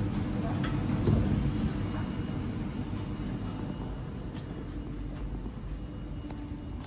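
Cabin noise inside a DB class 612 diesel multiple unit: the steady low hum of its underfloor diesel engine with a constant droning tone, a few light clicks and rattles from the interior fittings, and the whole gradually getting quieter after about a second.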